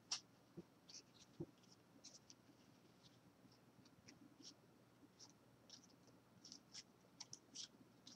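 Faint soft swishes and light ticks of 2013 Topps baseball cards being slid one by one from hand to hand, with a sharper click just after the start.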